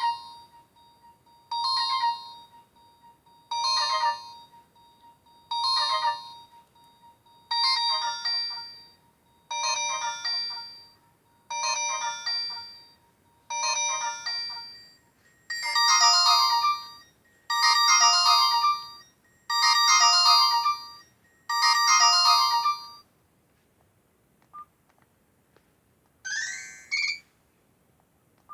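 Nokia 108 mobile phone playing an electronic ringtone: a short melodic phrase repeated about every two seconds, getting louder and fuller about halfway through, then stopping. A few seconds later a brief rising electronic sweep plays, with faint short beeps around it.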